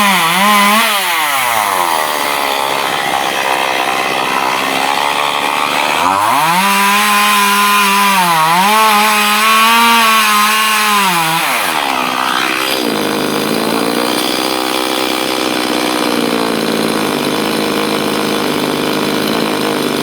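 Chainsaw running loud and high, falling back in speed after a second or two. About six seconds in it revs up hard again for some five seconds, its pitch dipping briefly as the chain bites into the wood. It then settles to a lower, steadier run.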